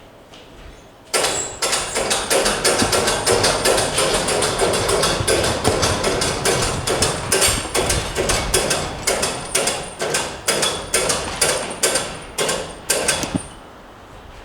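Rapid, irregular hammer blows, several a second, starting abruptly about a second in and stopping near the end.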